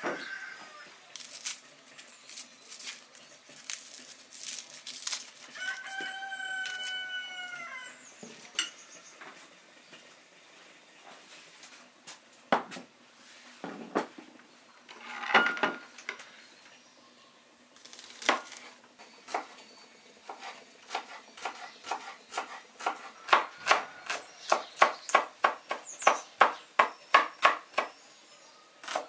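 A rooster crows once, a call of about two seconds. Scattered clicks and knocks follow, and near the end a kitchen knife chops small onions on a wooden cutting board in a quick run of sharp knocks, about three a second, which are the loudest sounds.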